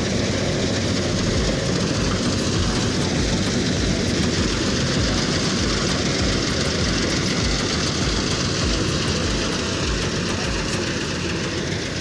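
Combine harvester cutting standing wheat: a loud, steady machine din of engine and header with a regular low throb.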